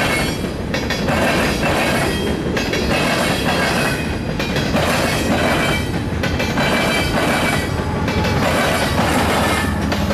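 Union Pacific freight train's boxcars rolling past close by, the steel wheels clacking over rail joints in a steady run of knocks, with a high wheel squeal at times.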